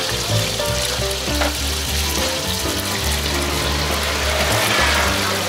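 Hot oil sizzling steadily in a wide pan as pan-fried small soup dumplings cook, under background music with a melody and bass line.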